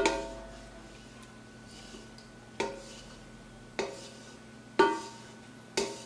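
Wooden spoon knocking against the inside of an enamel pot as the last fresh-cheese curds are scraped out: five sharp knocks, the first the loudest, then a pause and four more about a second apart, some with a brief metallic ring.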